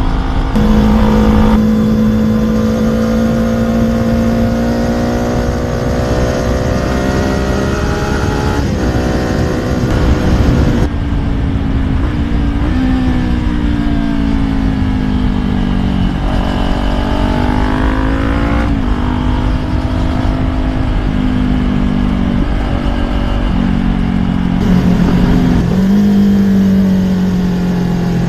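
Kawasaki Ninja 400's parallel-twin engine running on the move under a steady rush of noise. Its pitch holds, climbs, then drops suddenly about eleven seconds in, falls off slowly, and rises again near the middle.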